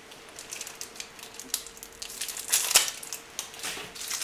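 Mouse packaging handled by hand, giving a series of irregular crackles and rustles, loudest about two and a half seconds in.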